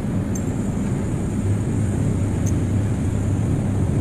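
Steady low mechanical rumble, like an engine running, with two faint light ticks.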